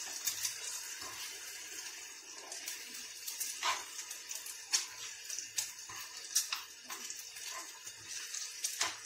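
Sliced onions frying in a pan with a steady sizzle, and a metal spoon scraping and clicking against the pan now and then as they are stirred.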